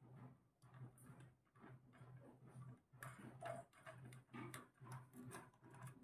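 Faint, irregular clicking and tapping from a caged ringneck parakeet's beak and feet on its wooden perch and the cage wires, over a low hum.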